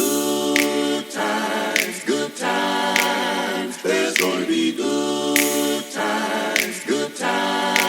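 A cappella vocal music: voices singing sustained chords in harmony, with a short percussive accent about every second and a bit keeping a steady beat.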